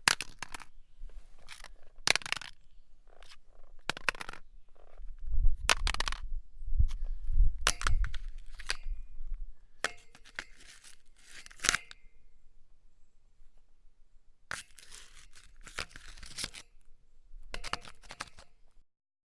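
Hard metal-sounding objects grating and clattering against one another in a series of short, irregular scrapes, with heavier knocks in the middle and quieter scrapes near the end.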